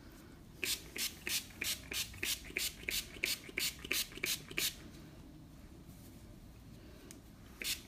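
Hands scrunching damp, freshly misted hair close to the microphone: short crackly squishes, about three a second, that stop a little before halfway and start again right at the end.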